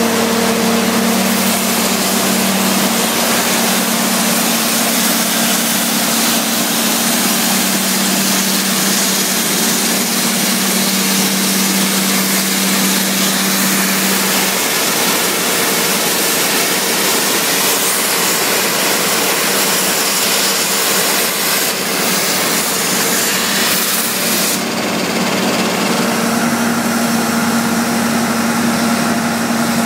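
225 hp Perkins diesel engine of a trailer-mounted water jetter running steadily with a loud, even hiss over it. Its low hum changes about halfway through.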